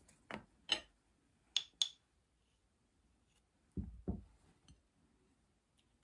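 Butter knife clicking against a glass Nutella jar as spread is scooped out: a few sharp clicks, two of them with a bright glassy ring, then two soft low thuds about four seconds in.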